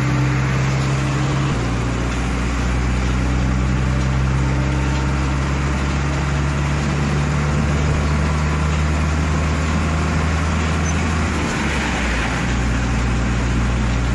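Delivery truck engine and road noise heard from inside the cab while driving at speed, a steady drone whose engine note shifts about a second and a half in and again near the end.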